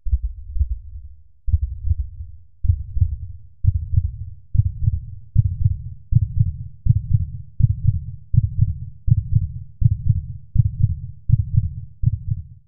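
Deep, heartbeat-like thumping from an intro sound effect. The beats speed up over the first few seconds, then hold a steady pace of a little over one a second.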